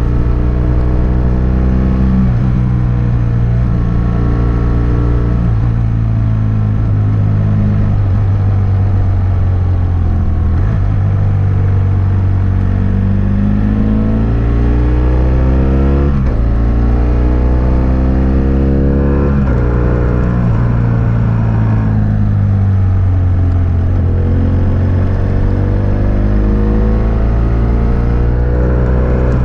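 BMW F800S parallel-twin engine through a GPR Furore Nero exhaust with dB-killer, running under way: the engine note climbs and falls repeatedly as the rider opens and closes the throttle, with sudden drops in pitch about a third of the way in, around the middle and again shortly after.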